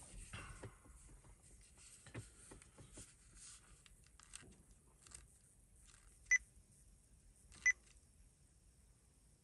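A Sony IC Recorder digital voice recorder gives two short beeps from its button presses, about a second and a half apart past the middle. Faint handling rustle and small clicks come in the first few seconds.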